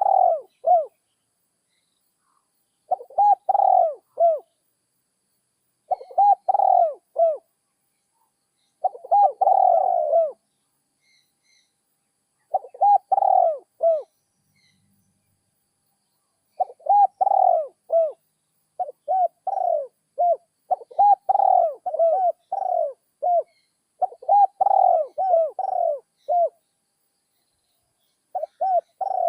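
Spotted dove cooing: short phrases of several low coo notes, repeated every few seconds and coming faster and denser in the second half. The call is of the type Thai dove keepers grade as a 'middle voice, one kuk'.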